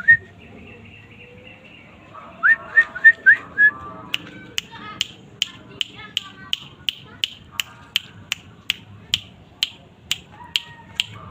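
Caged pet bird calling: a run of five loud rising whistled notes, then a long series of sharp clicking chips, about three a second, with chattering between them.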